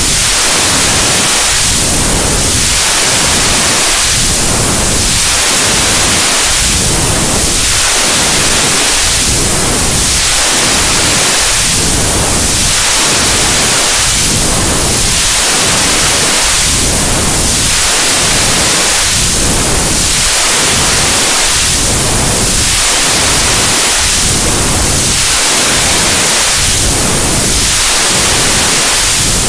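Loud, steady white noise with a slow sweeping swish that rises and falls in pitch about every two and a half seconds.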